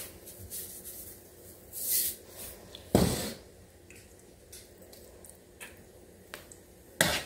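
Metal spoon and tongs moving through a pot of chicken and dumplings, with soft wet squelching of dumplings in the broth. There are a couple of sharp knocks of the utensils against the pot, one about three seconds in and one near the end.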